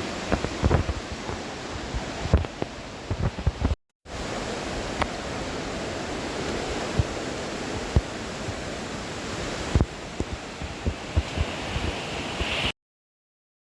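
A steady rushing noise with scattered low thumps. It drops out abruptly to dead silence for a moment about four seconds in, and again near the end.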